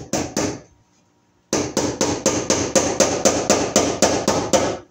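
Hammer blows on wood overhead: three quick strikes, then after a short pause a steady run of about a dozen blows, roughly four a second.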